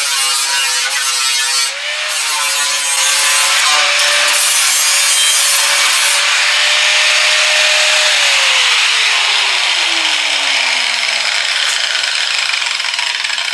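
Angle grinder grinding on the sheet-metal edge of a car's quarter panel, its motor whine dipping briefly under load. About eight seconds in it is switched off and the whine falls steadily as the disc spins down.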